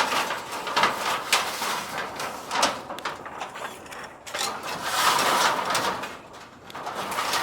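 Roofing being laid: a series of knocks and clatters from tin roofing sheets and tiles being handled and set down, with a longer scraping sound about five seconds in.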